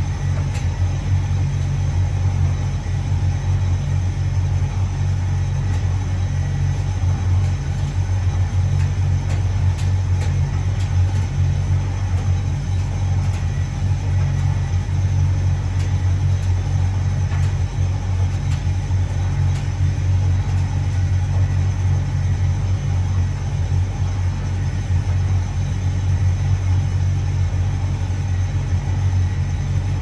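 Hotpoint Reversomatic 9327 vented tumble dryer running on its low-heat drying cycle: a steady low rumble from the motor and turning drum, with faint scattered ticks.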